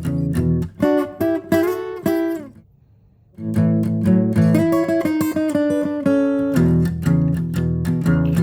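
Background music on acoustic guitar: plucked notes that stop for about a second near three seconds in, then resume with fuller chords.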